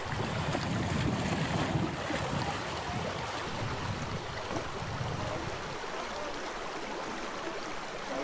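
Water rushing down a concrete weir chute into churning white water, a steady noisy wash. A low rumble, typical of wind on the microphone, sits under it for the first five seconds or so and then drops away.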